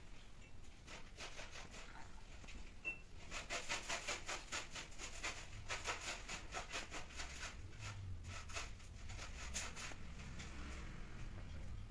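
Soft rhythmic rasping, about four strokes a second, from a Persian cat moving on a tiled floor, starting about three seconds in and fading near the end.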